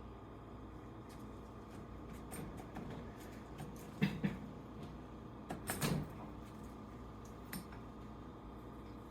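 Small clicks and light knocks from handling tools and RC truck suspension parts during hinge-pin removal, with two sharper knocks about four and six seconds in, over a low steady hum.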